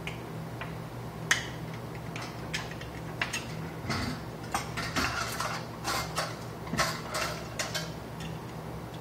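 Clicks, taps and clatter as a plastic lampholder, a screwdriver and the sheet-metal channel of a fluorescent light fixture are handled and set down on a wooden work table, busiest in the second half. A steady low hum runs underneath.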